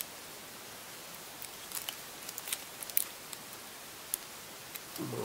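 Scattered small clicks and light rustles of hands working with tape and small laptop parts, over a steady hiss.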